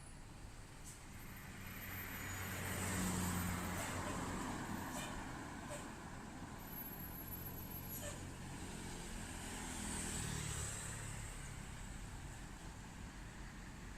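Road traffic passing: engine hum and tyre noise from passing vehicles swell and fade twice, peaking about three seconds in and again about ten seconds in.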